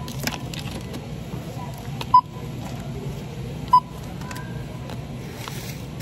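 A checkout barcode scanner beeps twice, short single-pitch electronic beeps about a second and a half apart, over steady store background noise.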